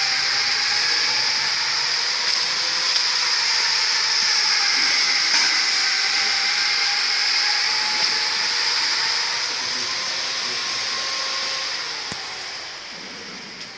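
Machine running steadily with a strong hiss and a faint, slightly wavering whine, fading away over the last couple of seconds.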